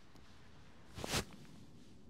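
A single short knock-like noise about a second in, over a faint steady outdoor background.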